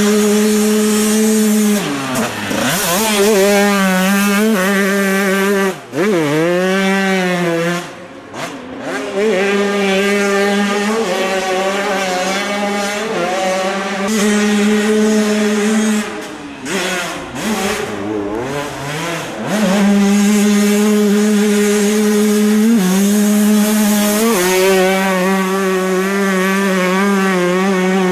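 Two-stroke motocross bike engines, a Honda CR125 among them, running loud at high revs. The note holds high for a few seconds at a time, then drops and climbs again several times as riders shift and pass.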